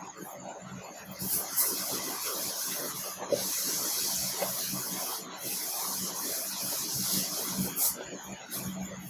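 Board eraser rubbing across a whiteboard, wiping off marker writing: a steady scrubbing hiss for about six seconds, broken by two short pauses between strokes.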